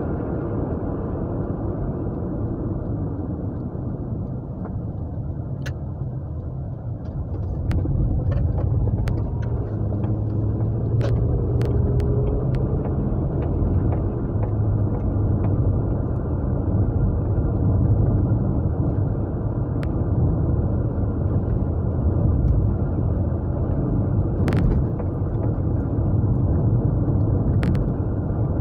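A Japanese V6 car engine running on the move, heard from inside the cabin with road and tyre rumble, the low engine note growing louder about seven seconds in.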